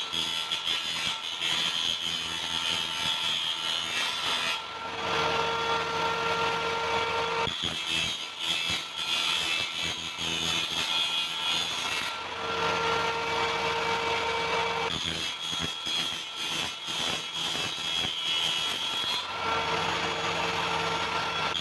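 Table saw blade cutting through PVC pipe, a rough rasping sound, in three passes, with the blade spinning free with a steady whine between them.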